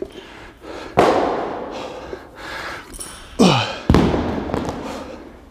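Bumper plates being stripped off a loaded barbell: a clank about a second in, then a sliding metal scrape as a plate comes off the sleeve and a heavy thud just before four seconds, the loudest sound.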